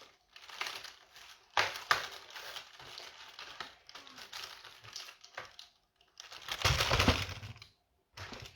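Crinkling and rustling of a wrapper being handled, likely as a chocolate comes out of the advent calendar door and is unwrapped, in irregular bursts with a louder, heavier rustle near the end.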